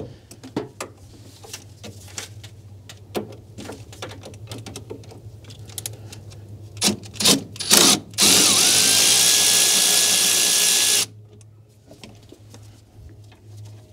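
Handheld power tool spinning out the 11 mm bolt where the lower steering shaft meets the power steering gearbox: a steady motor whine that rises and levels off, runs for about three seconds and cuts off suddenly. Before it, scattered sharp clicks of the tool and socket going onto the bolt.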